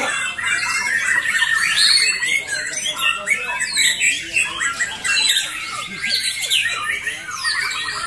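Many caged white-rumped shamas (murai batu) singing at once in competition: a dense, unbroken tangle of loud whistled phrases and rapid trills overlapping one another.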